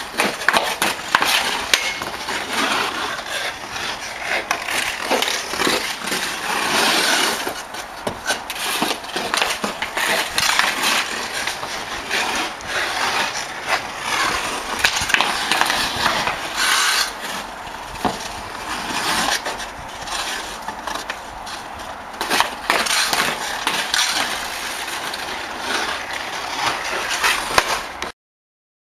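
Ice skate blades scraping and carving across rink ice, with sharp clacks of a hockey stick striking the puck and knocks of the puck hitting the boards or net. The sound cuts off suddenly near the end.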